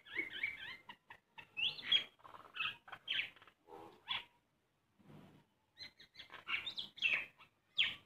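Common myna calling: a quick run of varied chirps, squawks and gurgling notes, with a pause of about a second near the middle before it starts again.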